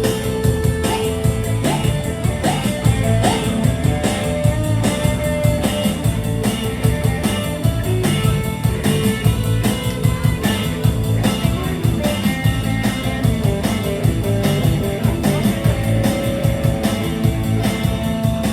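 Live band playing a Khmer twist song, with a steady fast beat.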